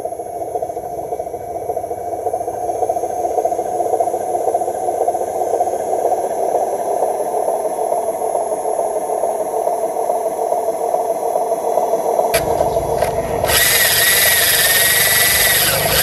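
Small electric motor and gears of a radio-controlled model truck whirring with a fast, fluttering rattle. Near the end a louder hissing sound with a wavering whine cuts in abruptly.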